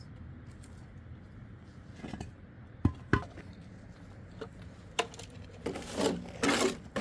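Two dull knocks about three seconds in, a click, then a run of clattering and scraping near the end, from objects being handled.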